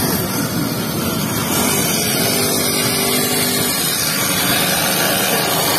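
A small engine of a children's mini dirt bike running steadily, against a busy outdoor background.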